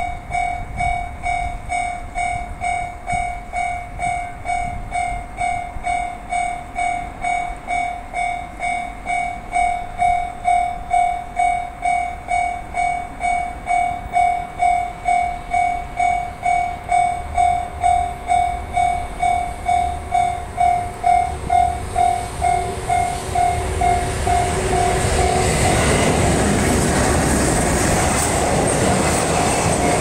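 Japanese level-crossing alarm bell ringing steadily at about two strokes a second. From about 25 s in, an EH500-hauled container freight train passes over the crossing, and its loud rumble and wheel noise almost cover the bell.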